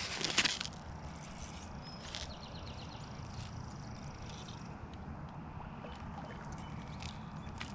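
A hooked bass splashing at the water's surface as it is played in to the bank, with scattered clicks and a brief burst of handling noise at the start over a low steady rumble.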